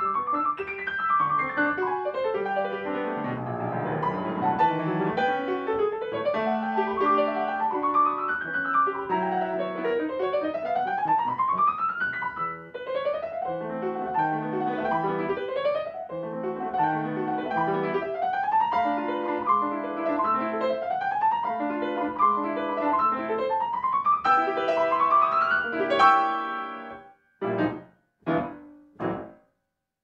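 Solo grand piano playing a classical piece: quick rising runs, one after another, over a steady accompaniment. It peaks in a loud chord near the end, followed by a few short, separated chords.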